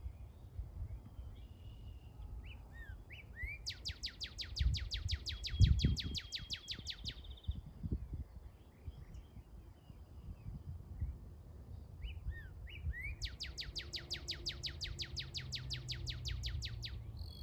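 Northern cardinal singing: two long, rapid series of steeply falling whistled notes, like sci-fi laser blasts, each led in by a few short rising slurs. A low rumble runs underneath, with a thump about six seconds in.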